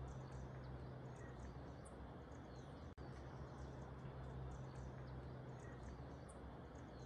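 Faint outdoor nature ambience: many short, high-pitched bird chirps scattered over a steady low hum and hiss, with the sound cutting out for an instant about three seconds in.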